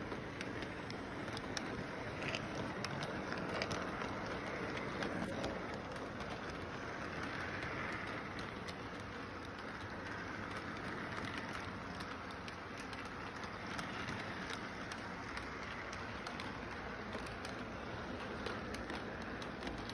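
Model train running on its track: a steady rumble of wheels and motor, with many small, irregular clicks as the wheels cross the rail joints.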